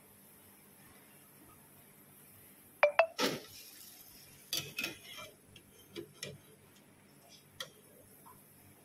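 Perforated steel slotted spoon clinking and scraping against a steel frying pan while fried gulab jamun balls are scooped out of the oil. Two sharp ringing clinks come close together about three seconds in, followed by several softer clinks and scrapes.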